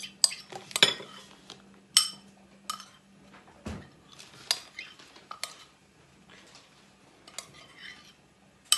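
A metal spoon scraping a soft garlic-butter mixture out of a ceramic bowl, clinking against the bowls in a run of sharp, irregular clinks.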